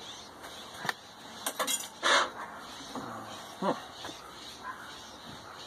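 A few scattered clinks and knocks of steel parts and tools being handled on a cluttered metal workbench, the loudest a little past two seconds in. No welding arc is running yet.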